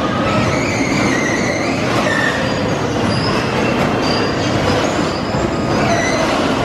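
Loud, steady din of an indoor bumper-car ride, electric bumper cars running around the rink, with short high squeals scattered through it.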